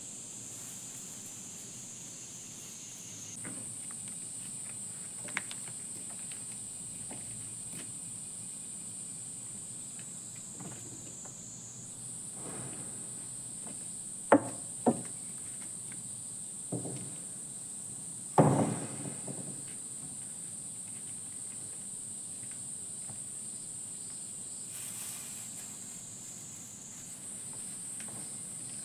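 Cicadas droning in a steady, shrill high band that steps up or down in pitch a few times. About halfway through, metal wire-mesh panels clank sharply a few times as they are lifted and set down on a wooden deck.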